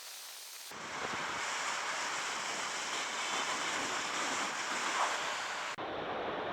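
Wind rushing over the microphone of a motorcycle riding at speed, a steady even roar with little engine tone showing through. It jumps up abruptly about a second in and changes character suddenly near the end.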